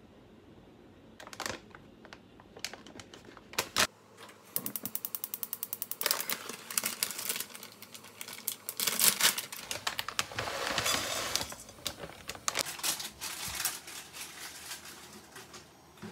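Small dried anchovies poured and spread in a dry nonstick wok: a dense, crackly rattle. It is preceded by scattered clicks and a brief fast run of even ticks, and it thins out near the end.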